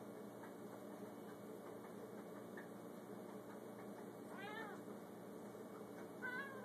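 Tabby cat meowing twice, once about four and a half seconds in and again near the end, each a short call that rises and falls, over a steady low hum.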